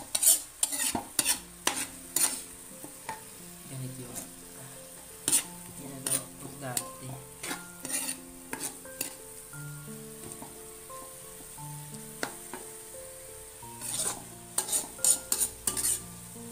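A metal spoon scraping and clanking against a wok while stirring shrimp paste (bagoong alamang) as it sautés, with a steady sizzle underneath. The strokes come in quick clusters near the start and again about fourteen seconds in, with scattered single scrapes between.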